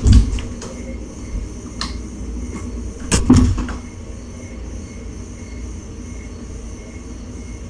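Two heavy thumps about three seconds apart, the second one ringing on briefly, over a steady low hum in a small room.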